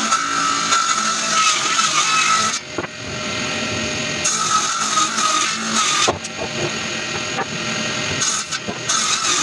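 Table saw running and ripping a red eucalyptus beam into strips, with a steady motor whine under the cutting noise. The cutting noise eases off briefly about two and a half seconds in, and twice more near the end.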